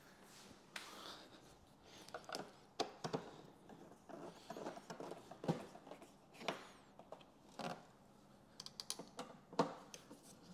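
Hand screwdriver tightening motorcycle fairing bolts: irregular clicks and short scrapes as the bit seats in the bolt heads and turns, with the loudest click about three seconds in.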